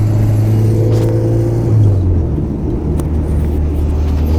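Honda Civic with a swapped-in H22 four-cylinder engine driving, heard from inside the car: a steady low engine hum whose pitch drops about halfway through, with a faint click about three seconds in.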